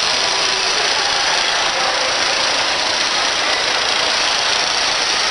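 Small airbrush air compressor running steadily, with a constant hiss of air.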